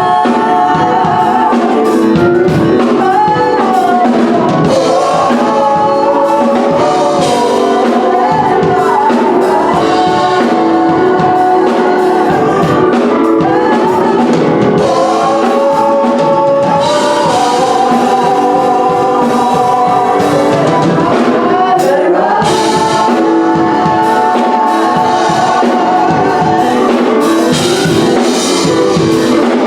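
Gospel choir singing with a band accompaniment of drums.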